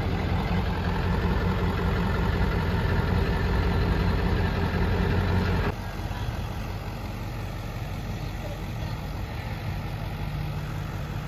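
Truck engine idling with a steady low hum. About six seconds in, the sound drops suddenly to a quieter, steadier engine hum.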